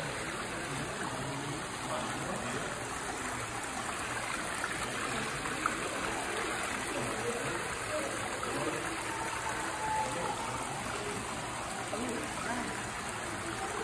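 Steady running water of a man-made rock stream, trickling over stones.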